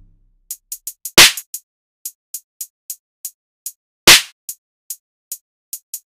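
Hip-hop drum-machine beat in a breakdown: the heavy bass and the rest of the mix drop out. What is left are sparse, quick high hat-like ticks and two heavy drum hits about three seconds apart.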